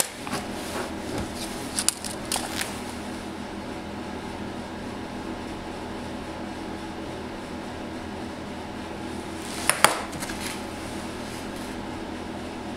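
A steady electrical or fan-like hum, with a few small clicks and taps in the first couple of seconds and a short clatter about ten seconds in.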